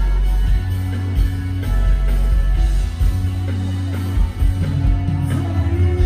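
Live band music played loud through a concert sound system, with heavy bass, held notes, and a male singer's amplified voice.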